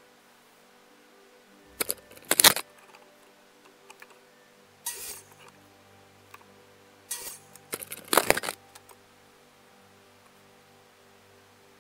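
Quiet background music of long held tones, broken by short clusters of sharp rattles and clacks about two, five, seven and eight seconds in, the loudest near two and a half and eight seconds.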